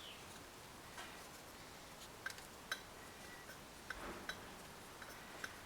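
Small faucet parts and a hand tool being handled: about seven faint, irregular clicks and light clinks over a few seconds, each with a short ring.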